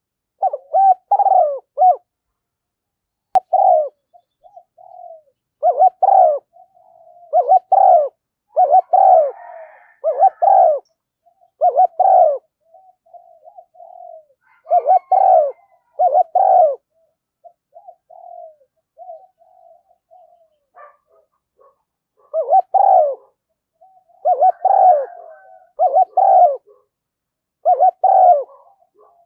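Spotted doves cooing: loud groups of short hoarse coos come every second or two, with softer coos in between, and there is a lull a little past the middle. This is a lure recording of cooing and calling doves, used to draw in wild spotted doves.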